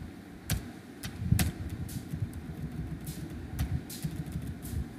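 Scattered clicks of a computer mouse and keyboard, about half a dozen, over a low, steady background rumble.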